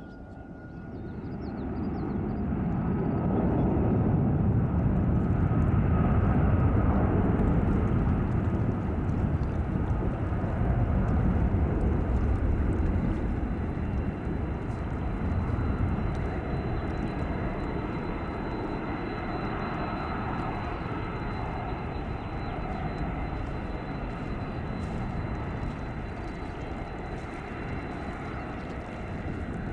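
Jet airliner engines: a deep rumble that builds over the first few seconds, then slowly eases off. A steady high whine joins in a little before the middle.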